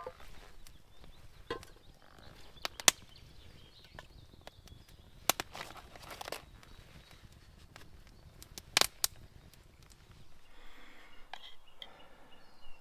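Scattered sharp clicks and knocks, one every second or so, over a faint outdoor background.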